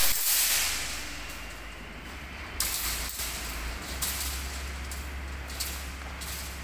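Long steel reinforcing bars being dragged out of a bundle, scraping against the other bars, over a steady low hum, with a single knock about three seconds in.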